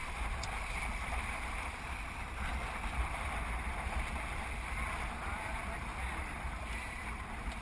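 Steady rush of water along a kayak on the sea, with wind rumbling on the GoPro's microphone.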